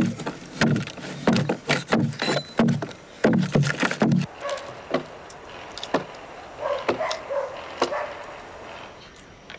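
Chopping blows of a hand tool biting into the wood of a log being hollowed out into a dugout canoe: about a dozen quick strikes over four seconds, each with a deep thud. After that come sparser, quieter sounds.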